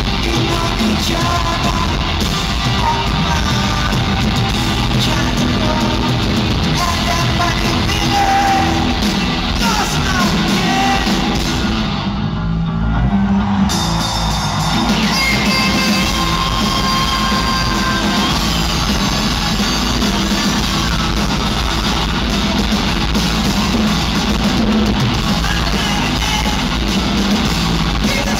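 Live rock band playing loud distorted guitars, bass and drums with a singer, heard from the arena crowd through poor, muddy recording sound.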